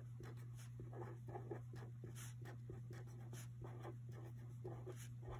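Marker pen writing on a paper worksheet: a quick run of faint scratchy strokes over a steady low hum.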